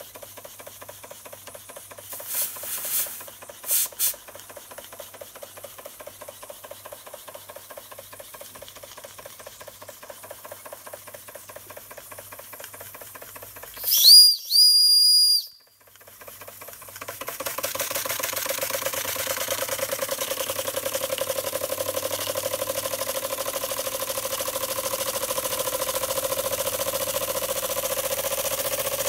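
Schoenner "Lipsia" toy steam engine running with a fast, even chuffing beat. A few seconds in there are two short hisses, and about halfway its steam whistle blows twice, high-pitched; after a brief pause the engine's beat is louder.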